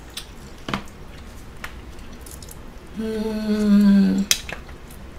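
A woman hums a closed-mouth 'mmm' at a steady pitch for just over a second while eating, about three seconds in, followed by a sharp click. Soft mouth and spoon clicks come before it.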